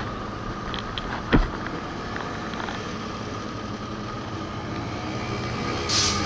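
Motorcycle engine running at low speed in slow city traffic, with the steady drone of the surrounding vehicles. There is one sharp knock about a second in and a short hiss near the end.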